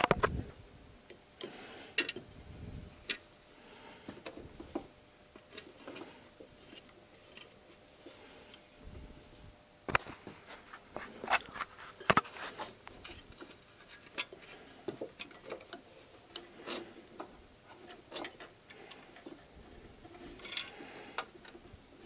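Scattered, irregular light clicks and taps with several sharper knocks, from hands working a toothed rubber timing belt onto the sprockets of a VAZ 8-valve engine.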